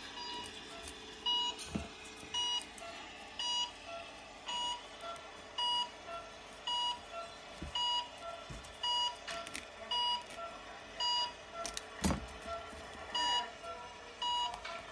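Electronic beeper sounding short, shrill beeps at a steady rate of about one a second, with a sharp click or knock about twelve seconds in.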